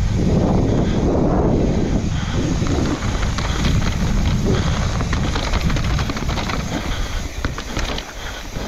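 Mountain bike riding fast down a rough dirt trail: a steady rumble of wind buffeting the microphone, with tyres on dirt and the bike clattering and rattling over rocks.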